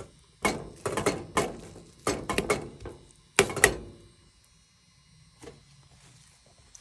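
Metal fork knocking and scraping against a stainless steel pan while stirring crab meat: about seven sharp clinks over the first four seconds, then only a faint tap.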